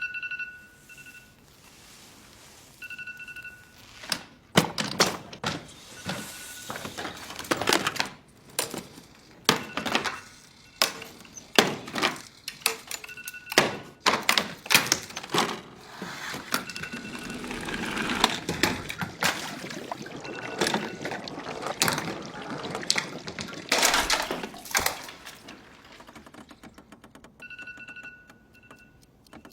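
Electronic alarm clock giving short high beeps now and then, between clicks, knocks and handling noise as its buttons are pressed and it is set.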